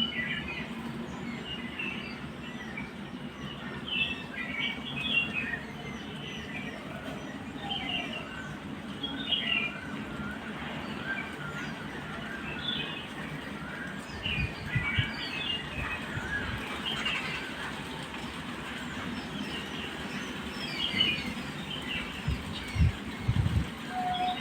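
Several small birds chirping and twittering over one another, short quick calls repeating throughout over a steady outdoor hiss, with a few low bumps in the second half.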